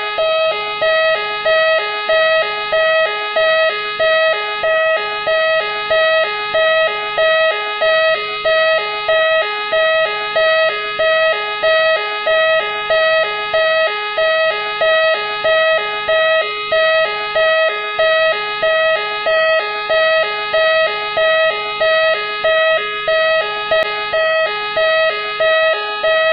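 Machine X police car's siren sounding continuously: a steady, slightly wavering electronic tone that pulses a little faster than once a second.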